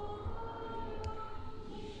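Voices singing quiet Orthodox liturgical chant, holding long sustained notes, with a brief click about a second in.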